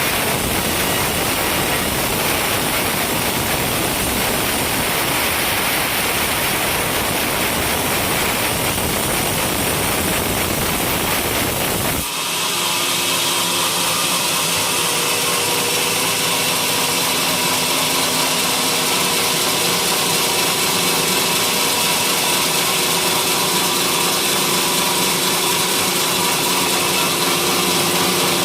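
Engine-driven sawmill running and sawing coconut-palm timber, a loud steady mechanical noise. About twelve seconds in the sound changes suddenly to a steadier whine with several held tones and less low rumble.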